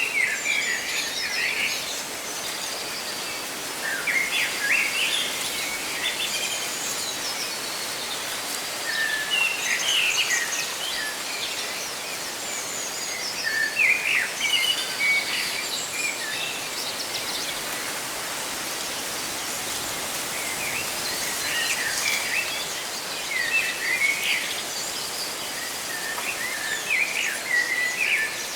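Birds chirping in short clusters of song every few seconds, over a steady hiss of leaves rustling in the wind.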